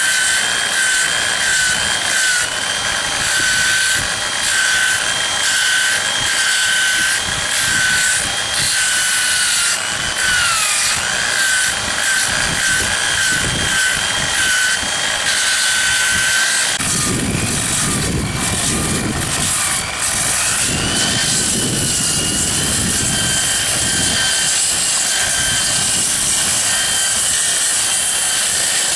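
Angle grinder with a sanding disc running continuously against a dried agave stalk. Its whine wavers in pitch as the disc is worked into the wood. About two-thirds of the way through the whine fades and a lower grinding sound takes over.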